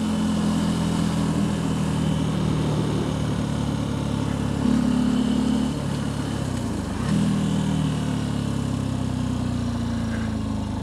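Benelli TNT 125's single-cylinder 125cc four-stroke engine running as the motorcycle rides along. The engine note rises about five seconds in, dips a second later, then picks up again.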